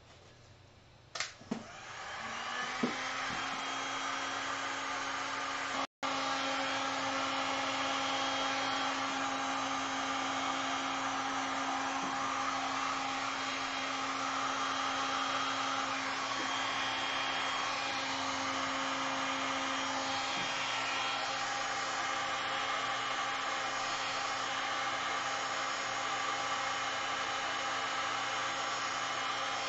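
Electric heat gun switched on over wet epoxy resin: after a couple of clicks its fan spins up about two seconds in. It then blows steadily with a constant hum, apart from a momentary dropout about six seconds in.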